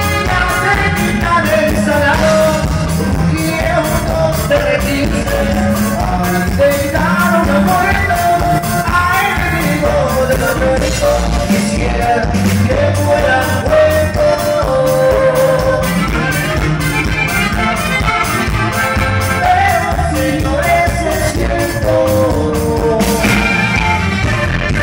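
A live norteño band playing, with accordion and saxophone carrying the melody over electric bass, drums and congas.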